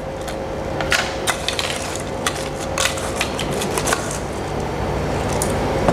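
Ice cubes clicking and clattering as they are dropped a few at a time into the plastic bowl of a food processor holding ground beef, over a steady low hum.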